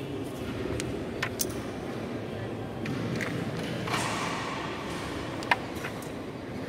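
A few sharp clicks of a carrom striker hitting coins on a carrom board, the loudest a little past five seconds in, over steady low background noise.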